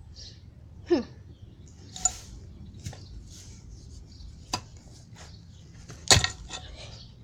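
A pickaxe knocking into the ground: a handful of separate sharp knocks and clinks spread out over several seconds, the loudest about six seconds in.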